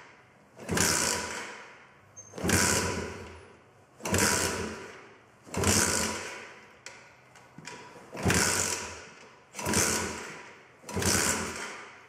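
Engine of an 80cc four-stroke super pocket bike being kick-started over and over, about seven kicks. Each kick gives a short burst of the engine turning over that dies away without catching: a hard-starting engine that won't fire.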